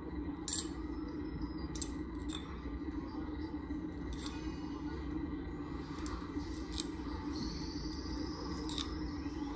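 Light metallic clinks and clicks of stainless-steel cream separator discs being lifted off the bowl's disc stack and set down, several of them spaced a second or so apart, over a steady low hum.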